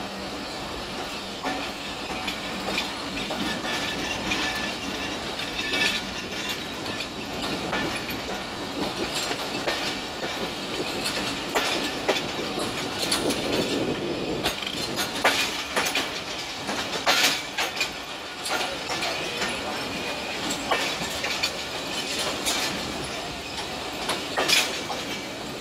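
Passenger coaches of the Mehran Express running along the track, heard from an open carriage window: a steady rumble of wheels on rail, broken by sharp, irregular clacks as the wheels cross rail joints.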